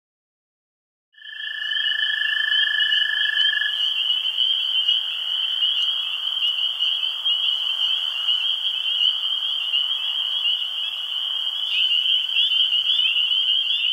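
Night ambience sound effect: a continuous, high-pitched chirring chorus of night creatures starts about a second in. A second, steadier tone joins it for the first few seconds.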